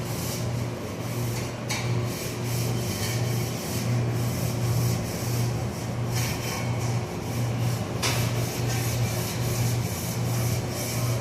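Cloth rubbing and wiping across a stainless steel refrigerator surface in continuous strokes, over a humming tone that swells and fades in a regular rhythm.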